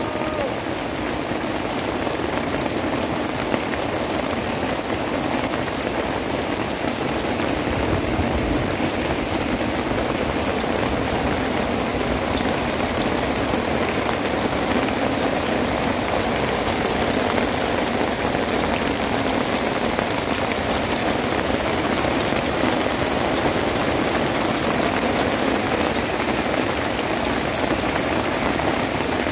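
Steady rain falling on wet, stony ground.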